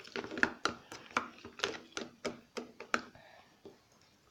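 Spoon stirring a sticky mix of glue and shaving foam in a bowl: a run of soft clicks and taps, about two a second, that stops about three seconds in.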